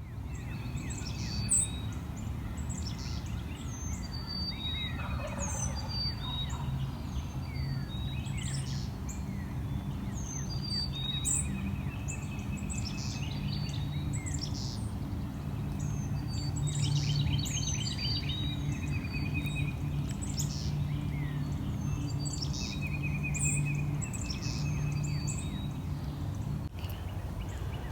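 Dawn woods with songbirds chirping and trilling throughout, and a wild turkey gobbling about five seconds in, over a steady low hum.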